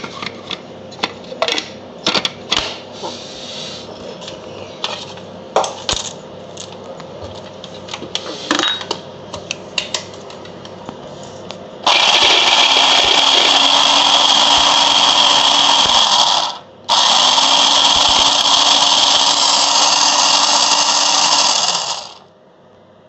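Clicks and knocks as a small electric food chopper is handled and fitted together. Then its motor runs loudly twice, for about four seconds and then about five seconds with a short break between, chopping pieces of aloe vera leaf into a paste. The hum of each run rises slightly in pitch.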